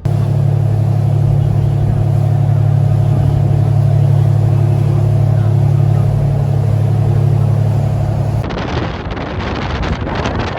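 A loud, steady low engine drone that holds an even pitch, then cuts off about eight and a half seconds in to wind buffeting the microphone.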